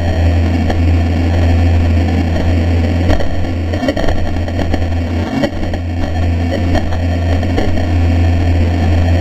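Traxxas Spartan electric RC speedboat running fast, heard from a GoPro mounted on the boat: a steady low hum of the hull and drive vibrating through the camera, with rushing water noise and scattered knocks as the hull hits the water. The hum dips briefly about halfway through.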